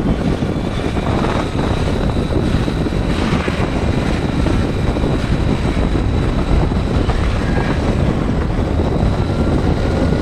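Steady rush of wind and road noise on a phone microphone carried on a moving motorbike, with the bike's engine running underneath.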